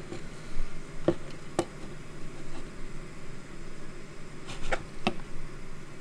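VEVOR diesel heater's blower fan running on its own at level 1, with the heater off: a steady low hum. Four sharp clicks come through, two about a second in and two near the end.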